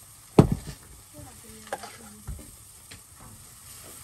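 Eggs and pancake batter sizzling in a cast-iron skillet, while a spoon scoops batter from a metal saucepan. A sharp knock of the spoon on the cookware about half a second in is the loudest sound, followed by a few lighter clinks.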